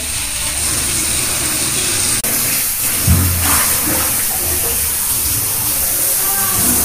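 A steady hiss over a low rumble, broken by a brief dropout about two seconds in and a single low thump about three seconds in.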